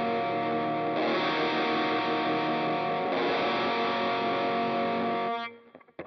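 Distorted electric guitar played through a Mooer GE 150 multi-effects unit on its "Sonic Lead" factory preset: held, ringing notes that change about a second in and again about three seconds in, then cut off sharply near the end.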